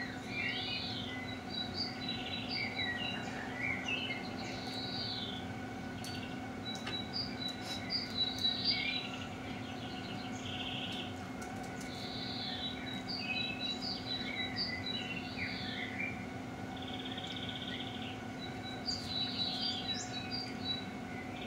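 Songbirds singing in bouts of a few seconds each, with varied chirps and quick trills, over a steady low hum.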